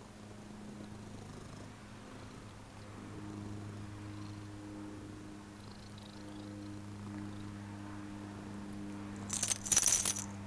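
Cat purring steadily as it is stroked. About nine seconds in, the metal ID tag on its collar jingles briefly and loudly as the cat moves its head.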